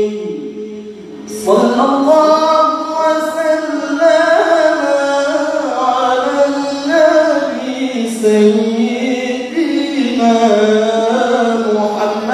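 A male qari reciting the Qur'an in the melodic tilawah style through a hand microphone. After a short breath about a second in, he sings one long ornamented phrase whose pitch winds up and down.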